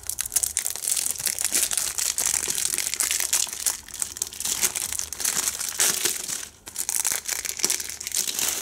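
Crinkly plastic shrink-wrap being torn and crumpled off a Blu-ray case, a dense run of crackling with a brief pause about six and a half seconds in.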